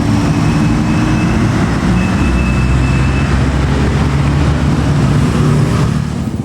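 Large tour bus's diesel engine running close by: a steady low drone with road noise. Its level eases slightly near the end.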